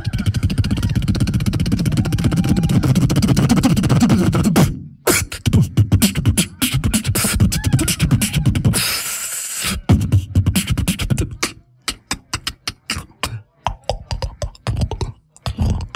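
Live beatboxing into a microphone: a dense, bass-heavy rhythm for the first few seconds, then sharp percussive clicks with a hissing burst about nine seconds in, thinning to sparse, quick clicks with short gaps near the end.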